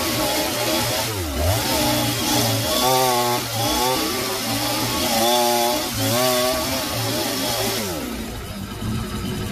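Petrol chainsaw running under load as its bar bores into a log, the engine pitch rising and dipping repeatedly as the cut bites and eases. Near the end it drops back to a lower, steady idle.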